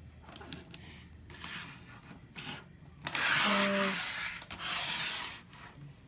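Plastic fidget spinner parts being handled and worked at to get a bearing out: rubbing and scraping noises with a few sharp clicks, loudest in two longer scrapes past the middle. A short voiced sound comes in the middle of them.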